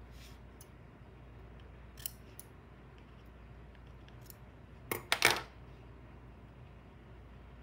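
Metal scissors cutting yarn with a few quiet clicks, then a short clatter about five seconds in as the scissors are set down on a wooden tabletop.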